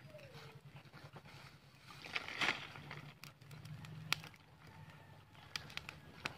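Small fire of dry twigs and dried banana leaves crackling, with sharp pops scattered through, loudest about two and a half and four seconds in. A steady low hum runs underneath.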